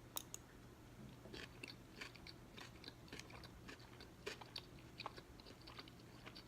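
Faint chewing of a mouthful of chicken almond salad, with small irregular crunches and mouth clicks.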